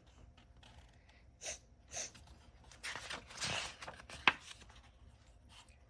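Paper rustling as a picture book's page is handled and turned: two short rustles, a longer rustle about three seconds in, then a single sharp tap just after four seconds.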